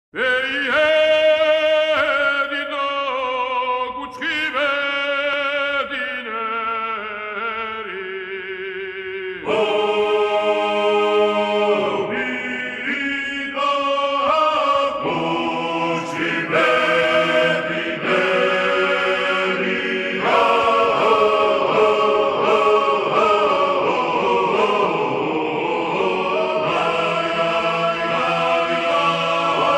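Background vocal music: several voices chanting in long, wavering held notes.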